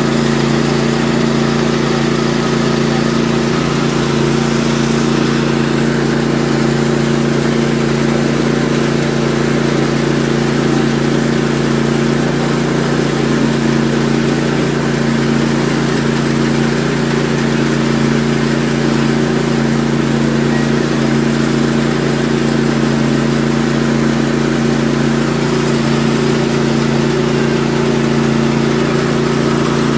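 Mini rice milling machine running steadily while it mills paddy, a constant machine hum with no change in speed.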